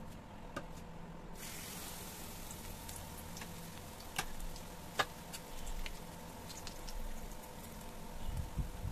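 Marinated chicken leg quarter frying in hot oil in a nonstick pan. The sizzle starts suddenly about a second and a half in as the chicken goes into the oil, then runs on with scattered pops and crackles, the sharpest about five seconds in. A low thud comes near the end.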